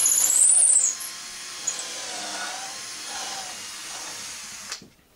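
Electric drill boring the angled screw hole through a wooden guide block: a loud motor whine that dips and rises in pitch, easing off about a second in, then the drill running on more quietly until it stops shortly before the end.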